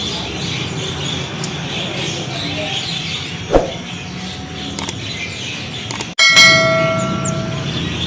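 Subscribe-button overlay sound effects: a sharp mouse click about three and a half seconds in, then a bright bell-like notification chime ringing for about a second, over steady background noise.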